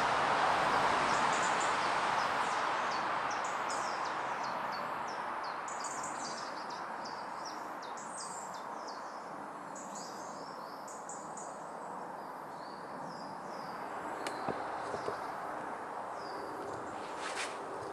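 Small birds singing with many short, high chirps over a steady rushing hiss that fades over the first several seconds. A couple of sharp clicks or knocks come near the end.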